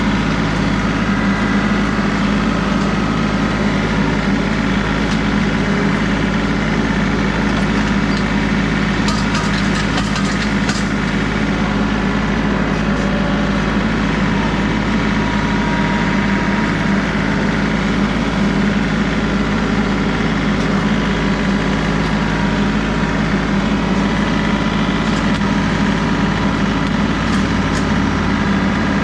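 John Deere 3038E compact tractor's three-cylinder diesel engine running steadily. A short run of cracks and snaps comes about nine seconds in.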